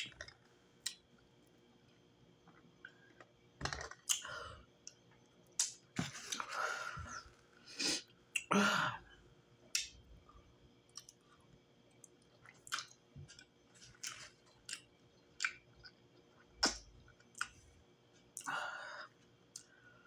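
Close-up mouth sounds of a person eating: chewing with wet lip smacks and clicks, coming in scattered bursts as she bites into and eats a boiled egg.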